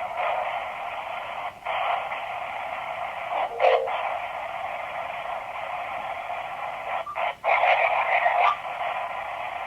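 Spirit-box radio static from a small speaker: a steady hiss with short gaps and a few brief louder snatches of sound as it sweeps, about a second and a half in, near three and a half seconds, and again around seven to eight and a half seconds.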